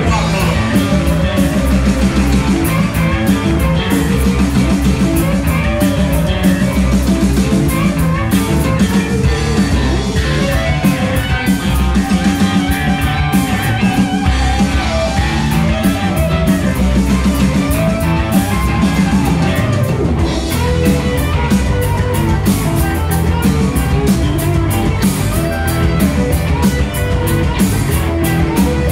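Live rock band playing: electric guitar over a drum kit with a steady beat, in a mostly instrumental passage.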